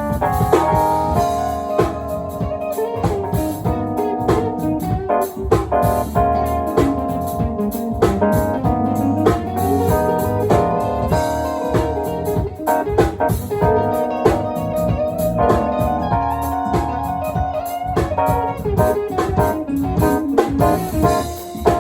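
A band playing jazz-funk fusion, an organ-like keyboard prominent over drums and bass, with bending lead lines.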